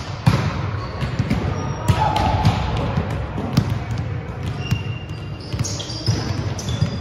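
Volleyball play in a large, echoing gym: sharp smacks of hands on the ball and ball bounces on the hardwood floor, with short high sneaker squeaks. The loudest smack comes about a quarter second in.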